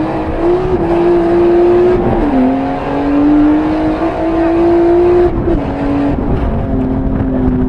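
Drift car's engine held at high revs, its note steady and then dipping sharply in pitch a few times as the revs change.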